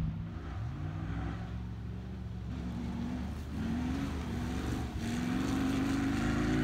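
Comp safari off-road racing car's engine revving under hard acceleration, its pitch climbing twice near the start as it pulls up through the gears, then rising and falling several times with the throttle, a little louder toward the end.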